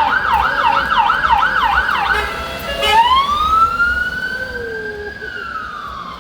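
Emergency vehicle siren on a city street: a fast yelp, about four rises and falls a second, stops about two seconds in, then after a brief break switches to a slow wail that climbs for about two seconds and then falls away.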